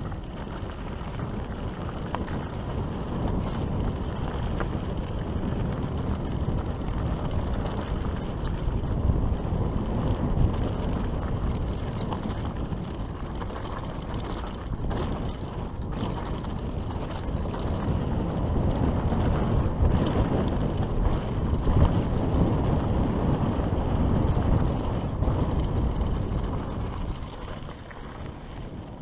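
Mountain bike running fast down a dry dirt singletrack: continuous tyre rumble over the dirt with wind buffeting the microphone, and the bike's frame and drivetrain rattling and clicking over bumps. It swells in places and eases off near the end.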